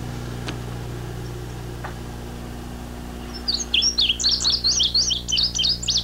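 Indigo bunting song played back from a reel-to-reel tape: a rapid series of high, sweeping notes given in pairs, starting about three and a half seconds in. Before it there is only a steady hum and tape hiss.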